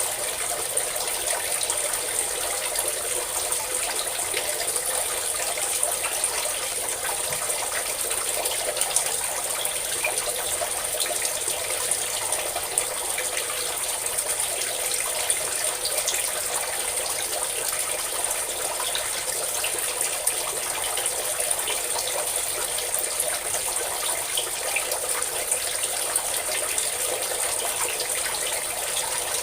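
A steady stream of water pouring and splashing, even and unbroken, with a bright hiss in the highs.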